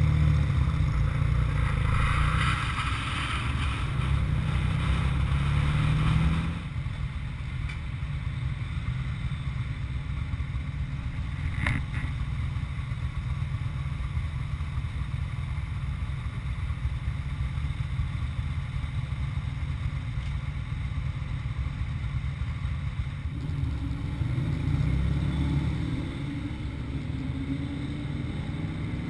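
Motorcycle riding with wind noise on a helmet camera, then dropping abruptly to a steady idle about six and a half seconds in. A single sharp click about twelve seconds in, and the engine picks up again with revving a few seconds before the end.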